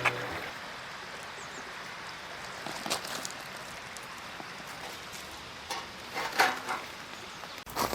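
Steady background hiss with a few short knocks and rustles, the loudest about six seconds in.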